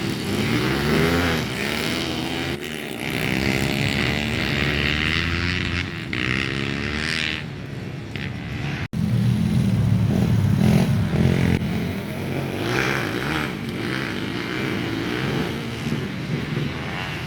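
Trail motorcycle engine running hard, revving up and falling back again and again as it is ridden through the gears. The sound breaks off abruptly about nine seconds in and comes back louder and deeper.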